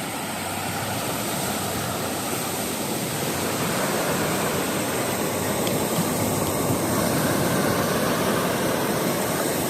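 Ocean surf breaking: a steady rushing noise that grows slightly louder through the stretch.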